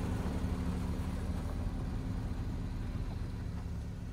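Old flat-fender Jeep's engine running steadily at low revs as it crawls through deep snow.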